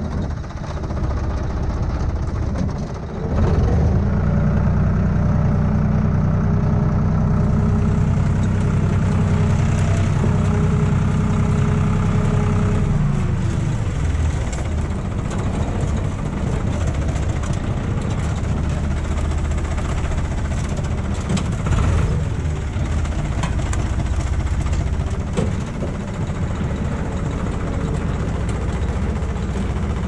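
Tractor diesel engine running steadily at raised revs, dropping back about thirteen seconds in to a lower, rougher idle with a few short knocks.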